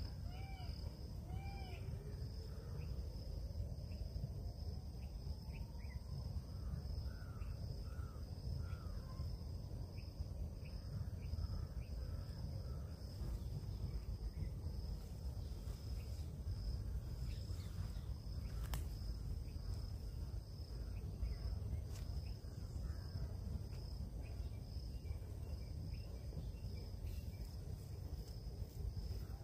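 Woodland ambience: a steady high-pitched insect drone over a low, even rumble, with a few short bird calls some seconds in.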